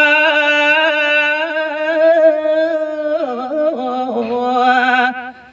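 A man's solo voice singing a Balinese geguritan verse into a microphone, drawing out long held notes with wavering ornaments. The phrase ends about five seconds in.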